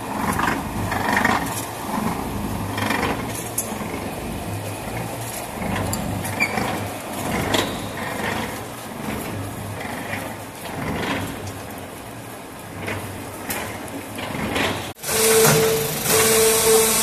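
Machinery of a clay interlocking-brick production line running: a pan mixer and belt conveyor with a steady motor hum and irregular rattles and knocks. About 15 seconds in, after a sudden cut, the automatic interlocking brick machine runs louder, with a steady tone.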